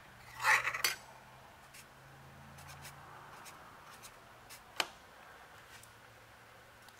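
Sharpie fine-point marker writing numbers on a metal plate, a faint rubbing of the felt tip, with a short louder scrape about half a second in and a single sharp tap about five seconds in.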